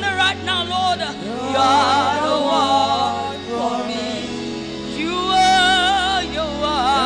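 Gospel worship song performed live: a solo singer on a microphone, sustaining wavering notes with wide vibrato and melodic runs over held low accompaniment chords.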